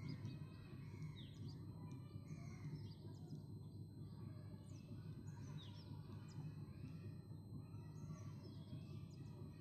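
Faint steady low background noise, with birds chirping now and then: short falling chirps every second or two.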